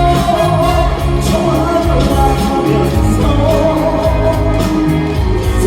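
Trot song's backing music playing loud and steady over the hall's sound system, with a melodic line carrying between sung phrases.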